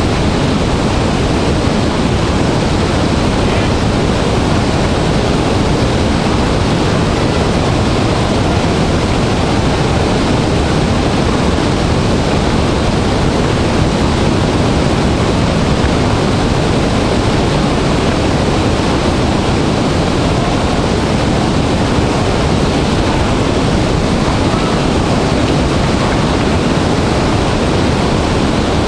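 Large waterfall in heavy flow: a loud, steady rush of falling water, deepest in the low end, with no let-up.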